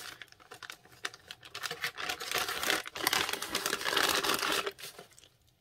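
White paper wrapping being unfolded and handled: a crinkly paper rustle of many small crackles, growing louder from about a second and a half in and stopping near the end.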